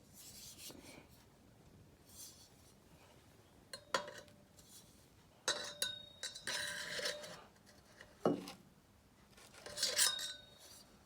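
Packaging rustling and small metal exhaust fittings being handled, with several sharp clinks and a couple of brief faint metallic rings.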